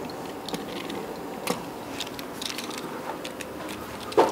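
Steady room hum with a few light, scattered clicks and taps, and a louder short knock just before the end.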